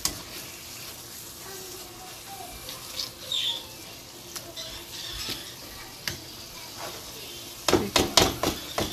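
Mashed carrots sizzling softly in a non-stick frying pan while being pressed with a metal fork, with a few light clicks of metal on the pan. Near the end comes a quick run of loud knocks and scrapes as a spatula stirs and turns the mash, about five or six in a second.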